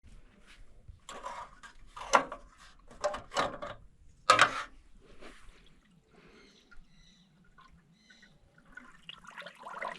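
Water being poured into a tractor radiator in about five short splashes over the first half, then fainter. It is being topped up because the radiator has a hole and loses a lot of water when the tractor stands idle.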